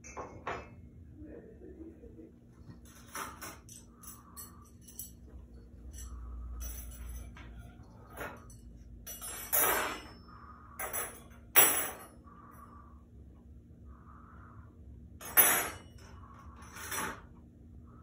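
Dishes clinking and clattering in a kitchen sink as they are washed by hand: irregular sharp clatters, the loudest a little past the middle and again near the end.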